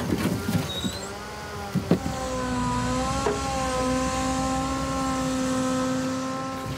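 Timber truck's hydraulic loading crane lifting logs: a steady mechanical whine that rises slightly in pitch about two seconds in and then holds, with two knocks a little over a second apart.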